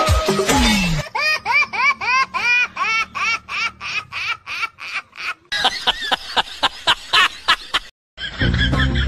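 High-pitched laughter in a rapid, even run of rising-and-falling 'ha' syllables, about four a second, followed by a denser second burst of laughing. Background music plays at the start, then drops out and comes back near the end.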